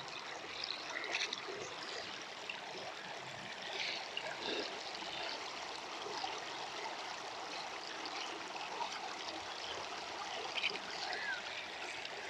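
Creek water trickling and flowing steadily.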